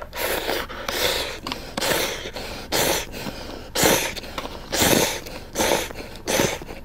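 A person slurping instant ramen noodles off chopsticks: a quick series of about eight airy slurps, the loudest about four and five seconds in.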